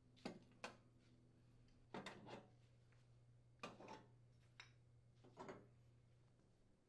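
Faint, scattered clinks and knocks as gas cooktop burner caps and burner bases are lifted off and set down, about seven light knocks in all.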